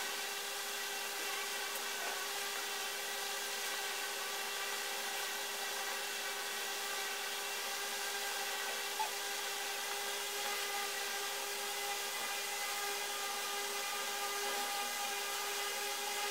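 A steady whirring hum with several fixed pitches that holds unchanged throughout, with one faint click about nine seconds in.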